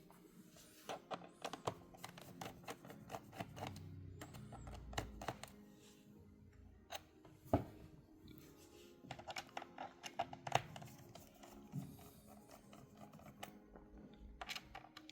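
Scattered small clicks and taps of a P5 pentalobe screwdriver removing the bottom-cover screws of a MacBook Pro, over faint background music.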